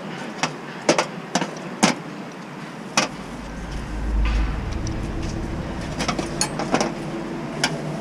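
Sharp knocks and clanks, several in the first three seconds and a few more later, over a low engine rumble that swells about four seconds in and then settles to a steady hum.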